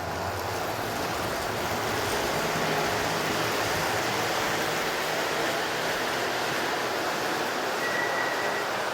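O-gauge model subway train running on three-rail track: a steady rolling rumble and hiss of the wheels and motors, with a brief faint high squeal near the end.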